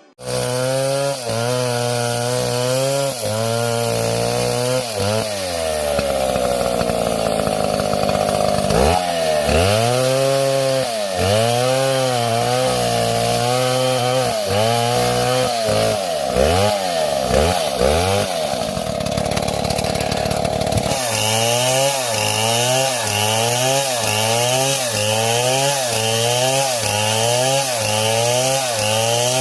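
Two-stroke chainsaw engine running and revving up and down over and over. One long drop and climb in pitch comes near the start, then revs rise and fall about once a second.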